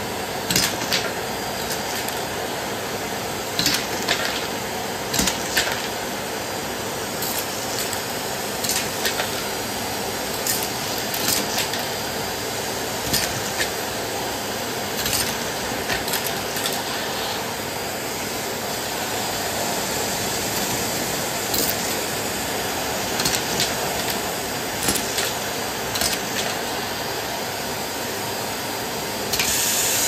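Bosch bagless canister vacuum cleaner running steadily while its bare suction tube picks Lego bricks off a laminate floor. The bricks make sharp clicks and rattles every second or two as they are sucked up the tube. The suction hiss grows louder and brighter near the end.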